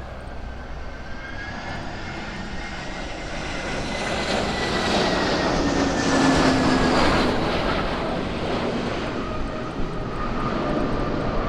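Airbus A320 airliner's twin jet engines as it passes on its landing. The roar swells to a peak about halfway through and then eases, with a thin whine that slowly drops in pitch as it goes by.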